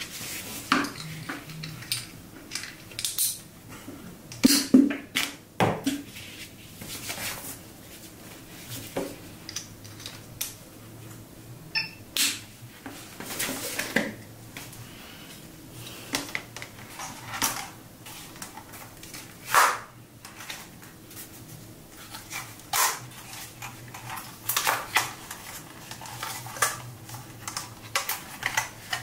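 Irregular clicks, taps and light clatter of hands handling hard plastic gear: a lanyard clipped onto a drone remote controller, then the folded drone picked up.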